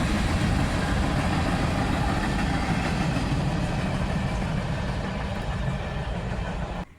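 A passing train rumbling, slowly fading as it moves away, then cutting off abruptly near the end.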